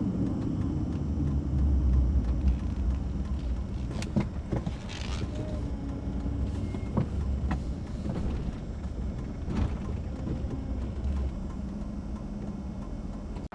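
A work truck driving, with a steady low engine and road rumble. A few scattered clicks and knocks sound over it.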